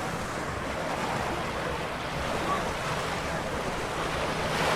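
Surf washing onto the beach in a steady wash of noise, with wind rumbling on the microphone.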